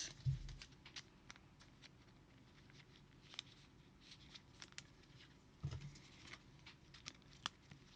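Faint, scattered light ticks and taps of trading cards being handled, with a soft low thump a little before the end.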